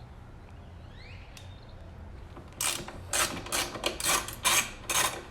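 Hand ratchet wrench clicking in short back-and-forth strokes, about two a second, starting about halfway in, as 12 mm bolts on the strut tops are loosened.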